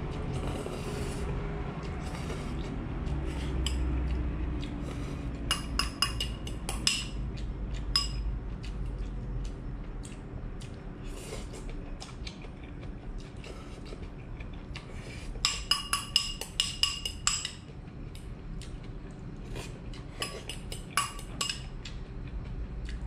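A metal spoon clinking and scraping against a small clear bowl while eating noodles, in three spells of quick clinks, over a steady low hum.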